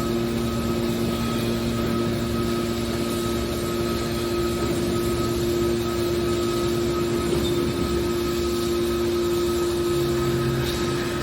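Hydraulic scrap metal baler's power unit running with a steady hum, and a lower tone joins near the end.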